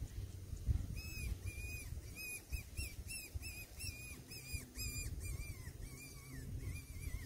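Hand-held fox whistle blown in a quick run of short, bending squeaks, about three a second, starting about a second in: a predator call imitating a rabbit in distress to draw in a fox. Wind rumbles on the microphone underneath.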